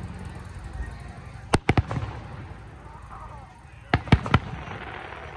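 Fireworks shells bursting: a quick run of three sharp bangs about one and a half seconds in, and another run of three about four seconds in.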